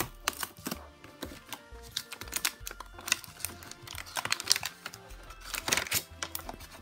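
Clear plastic blister packaging and a cardboard toy box being pulled apart and handled, giving a run of irregular crackles and clicks, busiest about halfway through and again near the end.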